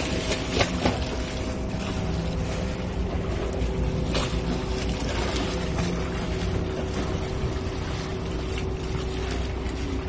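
A boat engine running steadily: a low rumble with a constant hum.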